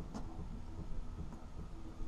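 Low, uneven rumble of wind on the camera's microphone, with one faint click just after the start.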